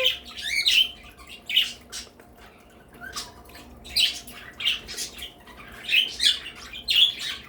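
A mixed flock of pet parakeets chirping and squawking: short, sharp rising calls that come every second or so, with brief quieter gaps between.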